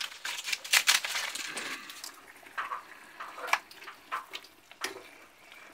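Crisp fried tortilla pieces crackling and rustling as they are dropped into a pot of hot salsa and stirred in with a spoon, with wet sloshing. Irregular crunches, a few of them sharper, about a second in and again past the middle.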